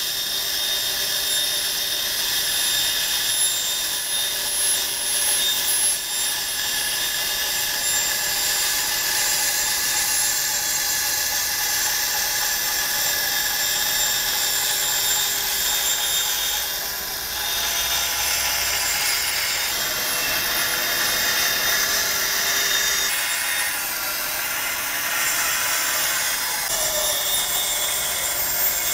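Band saw running and cutting plywood along a marked curve: a steady, high-pitched machine whine with the cutting noise shifting slightly as the board is fed and turned.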